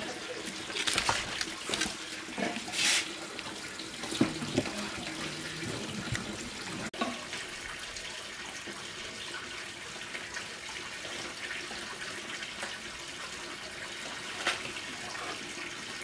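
Water running steadily, with a few louder short knocks and splashes in the first five seconds.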